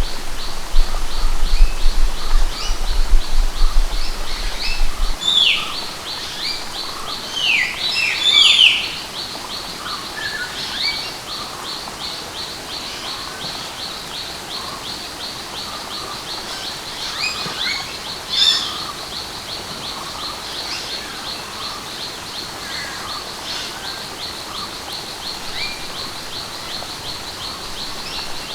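Birds calling, with several loud downward-sliding whistled calls and one more later, over a rapid, even, high-pitched chirping and a steady rush of falling water. A low rumble sounds in the first few seconds.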